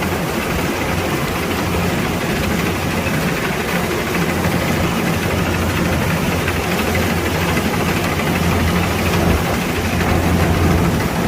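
Kubota DC-105X combine harvester's diesel engine and machinery running steadily, with a constant low hum.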